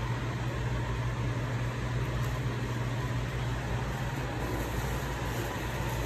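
A steady low mechanical hum with an even hiss over it.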